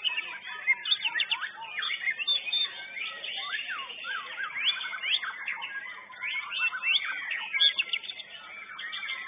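Many white-rumped shamas (murai batu) singing at once in competition, a dense overlapping mix of quick whistled phrases, rising and falling sweeps and chirps.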